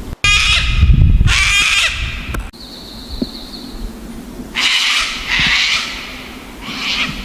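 Parrots calling: two loud, harsh squawks, then a short, thin whistle, then three more harsh squawks.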